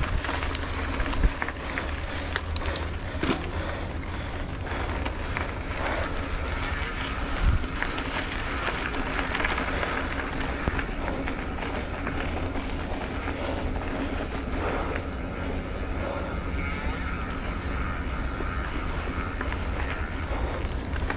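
Wind rushing over the microphone with road noise while riding a bicycle, and a couple of sharp knocks, about one second in and about seven seconds in.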